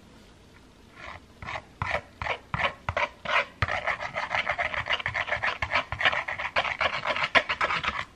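Meringue being beaten by hand in a glass bowl. A few separate strokes come first, then from about halfway on a fast, steady run of rasping strokes.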